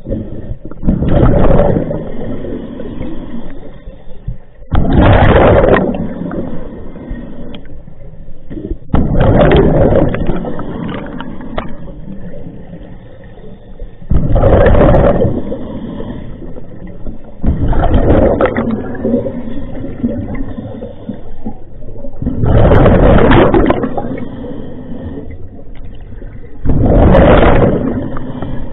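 Scuba diver breathing through a regulator underwater: seven loud rushes of exhaled bubbles, one about every four seconds, with quieter sound between breaths.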